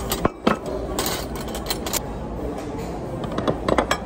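Ceramic plates and bowls clinking and knocking as they are lifted off a tray and set down on a table: a few knocks in the first two seconds and a quick cluster near the end, over a steady background hum.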